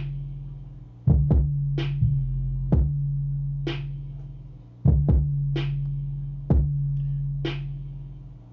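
A basic programmed drum-machine beat playing back: kick drum, a snare about every two seconds, and long 808 bass notes that fade between the kicks. This is the test pattern for using the Auto Align plugin to sidechain the 808 to the kick.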